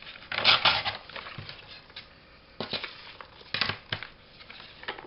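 Paper being handled: several short bursts of rustling and crinkling, the loudest about half a second in.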